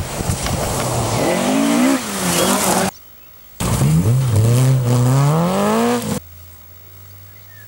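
Rally car engines on a gravel stage. First one car's engine runs hard and revs up and down as it approaches. After a short break, a Renault Clio rally car's engine revs up steadily, climbing in pitch, as it slides through a gravel bend. About six seconds in, the engine sound drops away to a quiet low hum.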